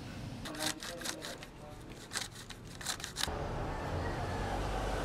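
A quick series of sharp clicks in two clusters, stopping about three seconds in, followed by a steady low background rumble.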